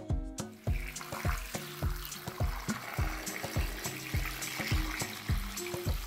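Water pouring in a steady stream into a stone-coated pot full of eggs, starting about half a second in, under background music with a steady beat.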